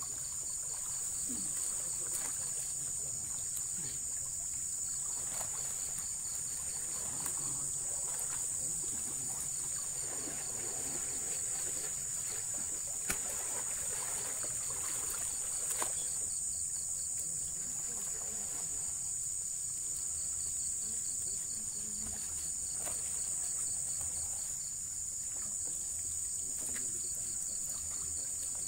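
A steady, high-pitched chorus of insects in the vegetation, with a faster pulsing trill just beneath it. Faint splashing comes from people wading in the shallow water.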